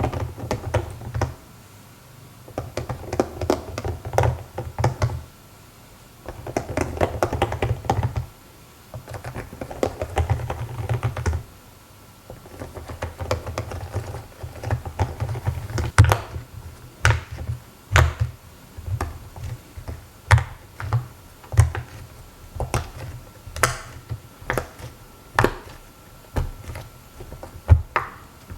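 Silicone pop-it fidget toy bubbles being pressed in, making quick runs of small pops that last a couple of seconds each, then, from about halfway through, separate sharper pops about one or two a second.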